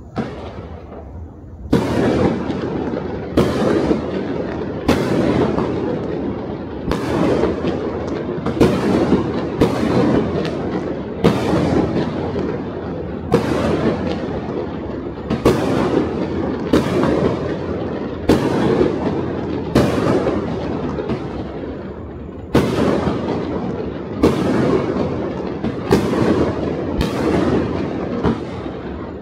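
Aerial fireworks bursting in quick succession, loud bangs about once or twice a second starting about two seconds in, each followed by an echoing rumble.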